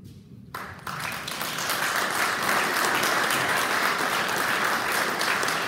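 Audience applauding, starting about half a second in and swelling to a steady level within a second or so.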